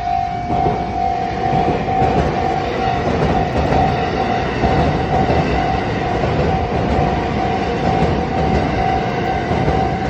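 Japanese railway level crossing's warning bell ringing in a steady, repeating tone while a train runs past. The train's rumble and rail noise come in about half a second in and stay loud alongside the bell.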